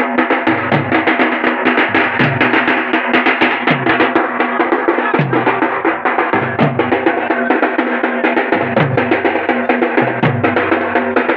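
Several rope-tensioned barrel drums (dhol) played fast with sticks in a driving street rhythm, with dense rapid strokes over a deep boom that drops in pitch and recurs about every one and a half seconds.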